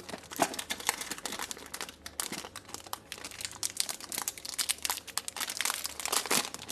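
Packaging crinkling and rustling as a speedcube's box and wrapping are opened by hand: a continuous run of small irregular crackles.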